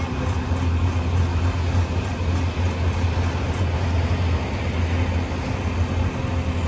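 Heavy truck's diesel engine running at a steady speed, driving the hydraulics of a truck-mounted grapple crane as it lowers a boulder. A low, even drone with no breaks.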